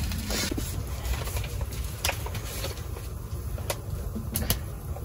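Wood fire burning in a camping wood stove: a low steady rumble with a few sharp crackles and clicks.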